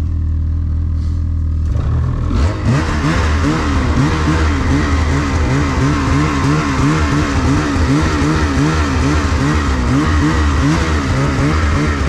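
Snowmobile engine idling, then about two seconds in revving up as the sled pulls away and rides along the trail, its pitch wavering up and down with the throttle under a steady hiss.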